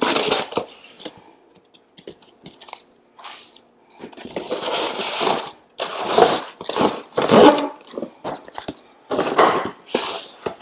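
Cardboard shipping box being pulled open and handled, its flaps and inserts scraping and crunching. One burst comes at the start, then it goes quiet with small clicks, and several more bursts follow from about four seconds in.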